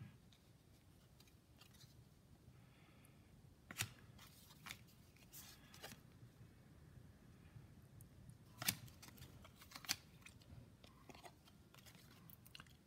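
Baseball cards being handled and flipped through: near silence broken by a handful of faint, sharp clicks of card stock, the strongest about four and nine seconds in.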